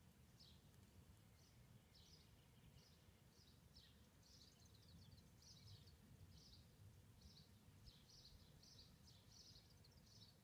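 Faint, repeated short chirps of a small bird, about two a second, over a steady low background rumble.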